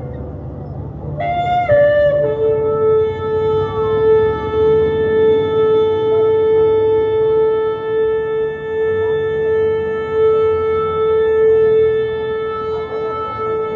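A shofar blown in one long blast. It starts about a second in on a higher note, drops within a second to a lower note, and holds that note steadily to the end.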